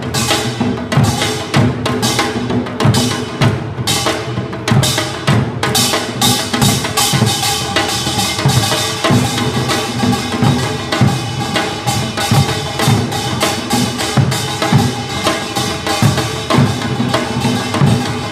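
Korean traditional drum ensemble playing: buk barrel drums and a janggu struck with sticks in a steady, driving beat of a few strokes a second.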